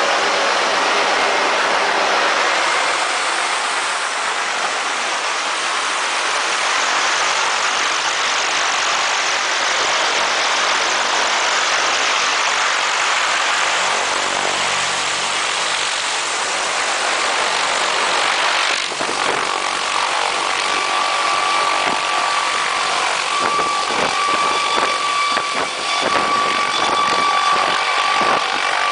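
Light helicopter running loudly, its engine and rotor making a dense, steady noise. About two-thirds of the way through a steady high whine comes in over irregular low pulsing, and by the end the helicopter is lifting into a hover.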